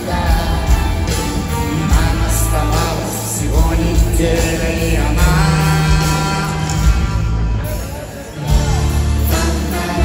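Live band music with a male lead singer, heard from the audience at an arena concert: a rock-pop song with drums, bass and keyboards, dipping briefly near the end before the band comes back in.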